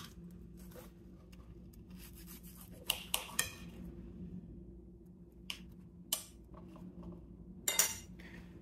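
Knife and fork cutting through fried chicken breading on a plate: faint scraping and a few short clicks of the steel cutlery against the plate, the loudest near the end. A faint steady low hum runs underneath.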